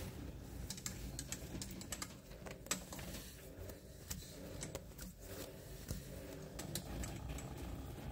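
Light, irregular metallic clicks and taps from a lathe as a shaft in the chuck is turned by hand and checked with a dial indicator, over a low steady hum.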